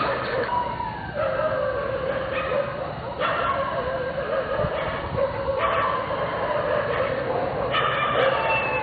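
A pack of dogs howling and whining together, several long wavering howls overlapping without a pause.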